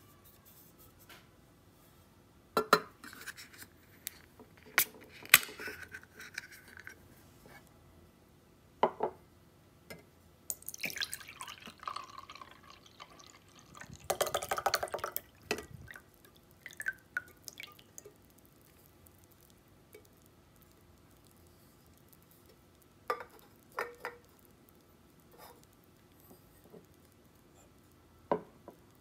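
Sharp clicks and taps of a drink can and glass tumblers handled on a table, with canned coffee poured from the can into a glass for about a second and a half, about halfway through.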